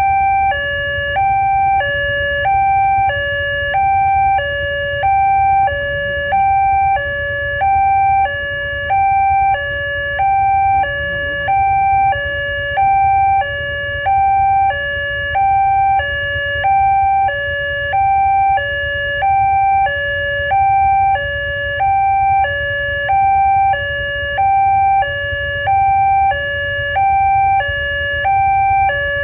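Electronic railway level-crossing alarm sounding a steady two-tone warning, a higher and a lower tone alternating evenly about every two-thirds of a second: the signal that a train is approaching and the barriers are down. A low steady rumble runs underneath.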